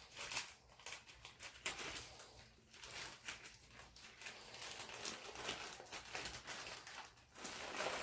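Scattered light clicks and rustles of parts and tools being handled during the dishwasher-handle repair.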